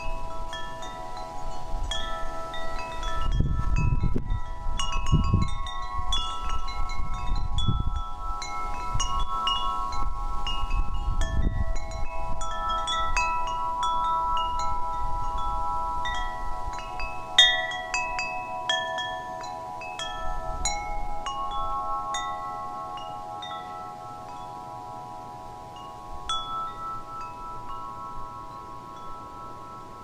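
Wind chimes ringing: many overlapping bell-like metal notes that ring on and blend, with new strikes every fraction of a second. A few low dull thuds sound in the first dozen seconds, and the chimes grow softer in the last third.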